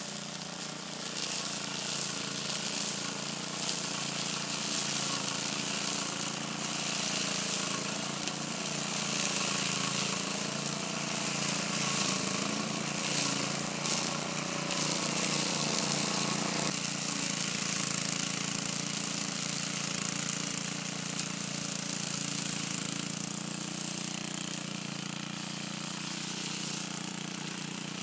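Old walk-behind gas lawn mower's small engine running steadily while cutting tall grass, a little louder in the middle.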